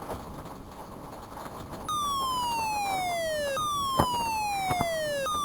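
Electronic warning siren sounding a tornado alert: a few seconds of quiet outdoor background, then about two seconds in a tone that falls steadily in pitch and jumps back up to start again roughly every second and a half, with a couple of sharp clicks over it.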